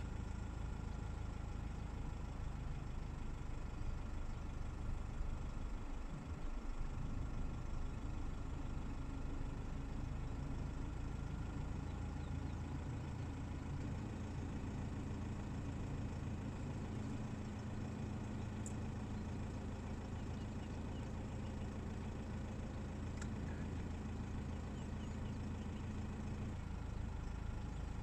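Car engine idling steadily, a low hum with a held tone.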